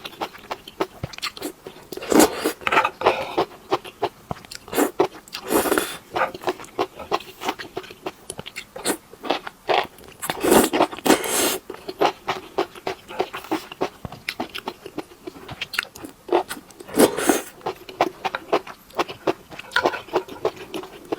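Close-miked eating: a person biting and chewing food, with many short, irregular crunchy bites and chews.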